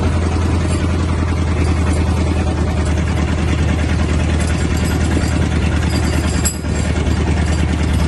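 Outrigger fishing boat's engine running steadily at sea, a constant low hum with no change in pitch.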